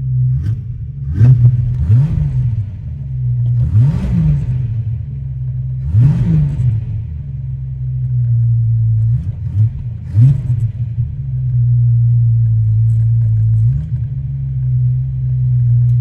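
Old Ford Falcon's engine running after a hard start, blipped in quick sharp revs about six times, then held steady for the last few seconds. The revving clears it out after heavy pedal pumping to get it started.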